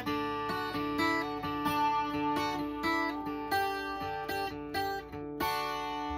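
Norman twelve-string acoustic guitar playing a Québécois song, picked and strummed notes, closing on a final chord about five seconds in that is left ringing.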